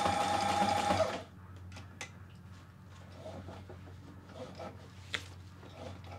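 Reliable Barracuda portable walking-foot sewing machine running under its electric motor, stitching forward with a steady whine that stops abruptly about a second in. After it, a few light clicks and fabric rustling, the sharpest click near the end.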